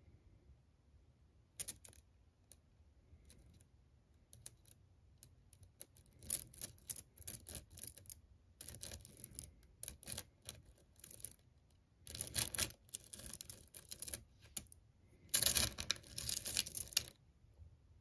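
Weak-magnet ferrite pebbles clicking and clattering together in a heap in a metal tin as they are stirred and pulled out in clumps. Single clicks at first, then dense rattling bursts, the loudest near the end.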